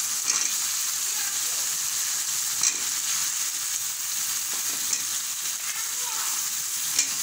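Soaked raw mango pieces sizzling steadily in hot mustard and soybean oil with spice paste in a wok. A metal spatula knocks against the pan four times, about every two seconds, as the mangoes are stirred.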